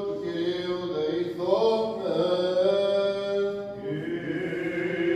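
Byzantine chant: a man's voice singing long, held notes that step in pitch a few times. It is the sung response to a litany petition in the Greek Orthodox liturgy.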